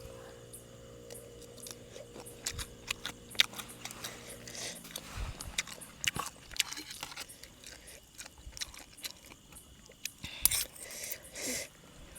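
Close-up chewing and crunching of a spicy Thai yum salad, with many short crunchy clicks. A steady low hum runs underneath and stops a little under five seconds in.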